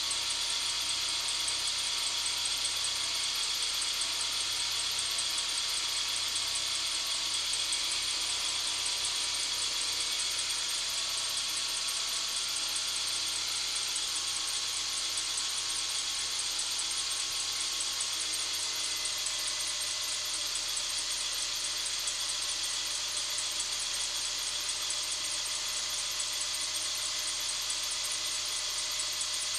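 Mercedes-Benz W246's M270 1.6-litre turbocharged four-cylinder engine running steadily after a cold start, with an abnormal high-pitched rapid 'chi-chi-chi-chi' ticking over it. The recording has its treble boosted to bring the noise out.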